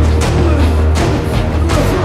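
Action-film score music with a deep, steady bass and several sharp drum hits.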